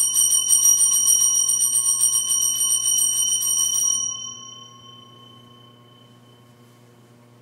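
Altar bell rung rapidly for about four seconds, marking the elevation of the chalice at the consecration, then its high ringing fades away.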